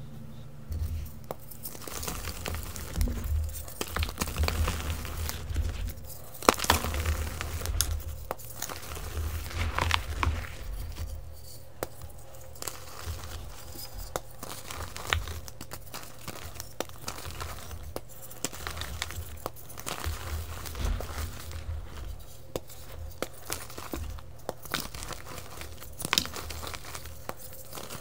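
Soft gym chalk blocks crunching and crumbling as fingers crush and squeeze them into powder, with many irregular sharp crackles and a low rumble of hands pressing into the chalk.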